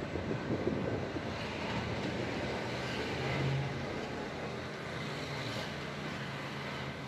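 Steady engine hum and road noise of a car, heard from inside while it drives.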